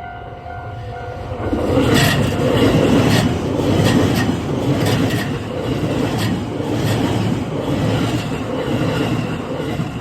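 A train passing over a level crossing. The crossing bell rings at first, then the wheels and running gear build to a loud rush about a second and a half in. Through the pass the wheels clack over the rail joints, often in pairs, and the noise drops away at the very end.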